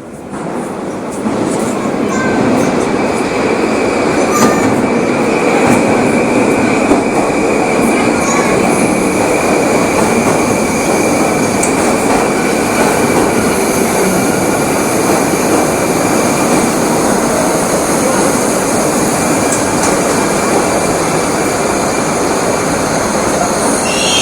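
Moscow metro train running through the tunnel, heard from inside the car: a loud, steady rumble of wheels on rail with a high, steady whine on top. It builds up over the first second or two, then holds.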